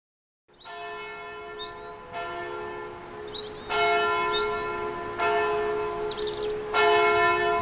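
A church bell tolling slowly, five strokes about a second and a half apart, each left ringing into the next. It fades in from silence and grows louder with each stroke. Short high chirps sound between the strokes.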